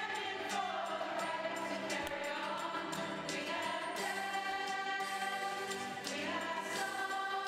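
Musical theatre ensemble of women's voices singing a song in chorus over musical accompaniment.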